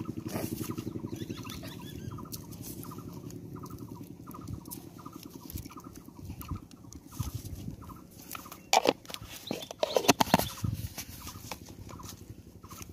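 Hands working dry bran in a plastic jar and bowl: scooping and rustling, with a cluster of loud plastic clicks and knocks about nine to eleven seconds in. Under it runs a steady, regular pulsing at about two beats a second.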